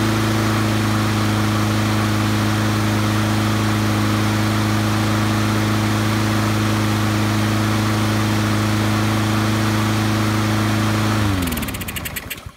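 Honda single-cylinder four-stroke lawn mower engine running at a steady, even speed with no chugging or surging, its updated governor spring fitted and speed set near 3,000 rpm. About eleven seconds in it is shut off and winds down to a stop.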